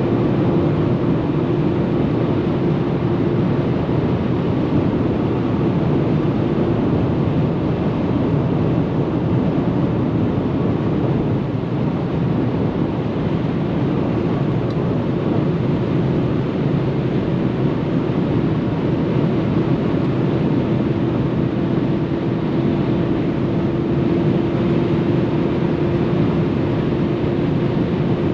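Mercedes-Benz E 200 W211 at sustained high speed: a steady engine drone mixed with a dense rush of wind and tyre noise, unchanging in pitch with no gear changes or revving.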